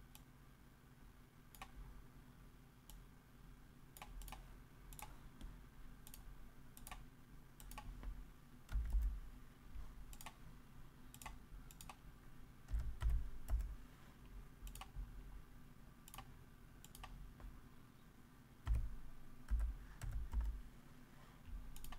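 Computer mouse clicks and keyboard keystrokes, single sharp clicks scattered about once a second, with a few low thumps, the loudest sounds, spread through.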